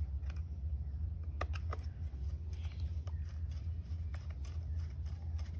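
A small screwdriver turning a screw into a plastic toy bus body: faint scattered clicks and scrapes of metal on plastic, over a steady low rumble.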